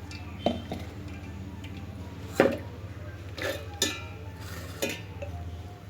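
A few separate clinks and knocks of steel kitchenware, as soaked chana and toor dal are transferred into a mixer-grinder jar; the loudest knock comes about two and a half seconds in.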